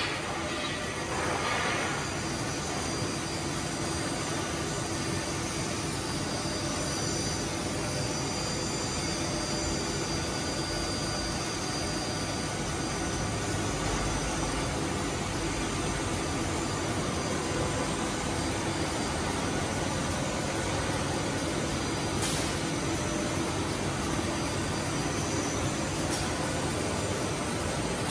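Holztek PRO-R1V9F heavy-duty CNC router running, its spindle cutting outlines into a wood panel: a steady machine noise with a steady high tone running through it, and two brief clicks in the last few seconds.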